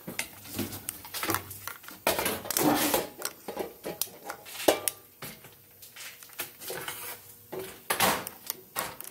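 Handling noise of a camera on a small tripod being picked up and carried across a cluttered workbench: irregular clattering knocks and rattles, with a sharp knock about halfway through and louder rustling bursts a few seconds in and near the end.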